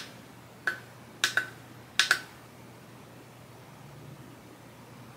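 Plastic power button on a K-pop lightstick clicked several times, with two quick double clicks, to put the lightstick into Bluetooth pairing mode.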